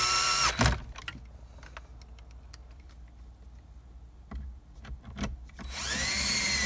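Power drill driving dash-panel screws: its motor whines steadily and stops about half a second in, a few light clicks and taps follow, then it whines again for about a second near the end.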